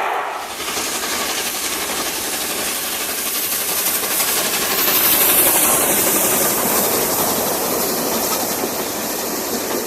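Steam locomotive 60163 Tornado, an A1 Pacific, running with its train: a steady rush of noise with steam hiss, loudest about halfway through.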